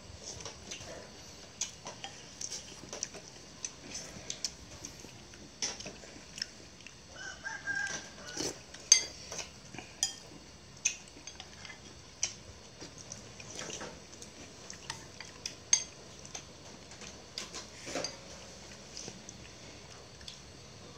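Scattered sharp clinks and knocks of kitchen utensils and pots, with a rooster crowing once about seven seconds in.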